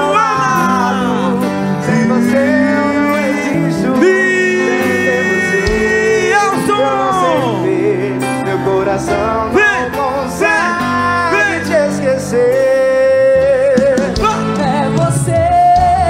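Quadrilha junina music with a voice singing long notes that bend and slide in pitch over the band.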